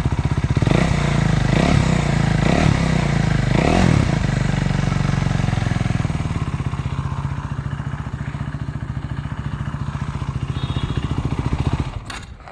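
KTM RC390's single-cylinder engine running through an aftermarket Barrel Exhaust Rouge end can with the dB killer removed, a very bassy note. It is blipped about four times in the first four seconds, settles back to a steady idle, and stops shortly before the end.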